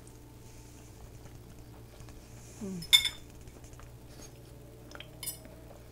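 A metal fork clinks sharply against a ceramic pasta bowl about halfway through, with a ringing tone, and clinks again more lightly near the end. Just before the first clink comes a short falling 'mm' from the taster, over a faint steady hum.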